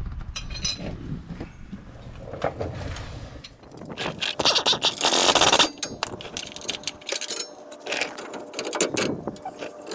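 Metal hand tools clicking and scraping against the truck's underside, with a louder rasping scrape lasting about a second and a half, about four seconds in.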